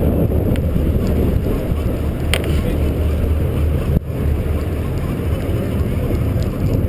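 A sportfishing boat's engine running steadily, a low drone, with wind buffeting the microphone. One sharp click about two seconds in.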